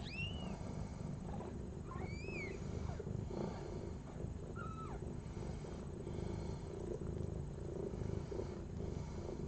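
Newborn kittens giving a few short, thin, high squeaks in the first half, over a steady low purr from the mother cat as she tends them just after the birth.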